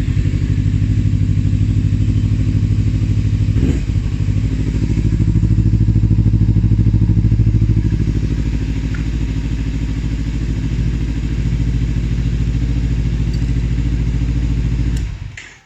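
Kawasaki Z250 parallel-twin motorcycle engine idling steadily, freshly started after a hard-starting fault was fixed. It runs a little louder in the middle, then is switched off and stops abruptly near the end.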